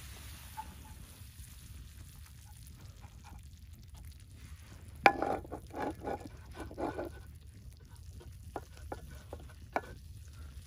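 Spatula stirring and scraping taco meat frying in a cast iron skillet over a wood fire, with one sharp knock of the spatula against the pan about halfway through, followed by a run of scraping strokes and a few lighter taps.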